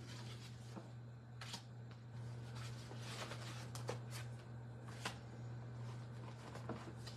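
Sheets of cardstock rustling and sliding as they are handled and laid down on a wooden desk, with a few short soft taps and clicks, over a steady low hum.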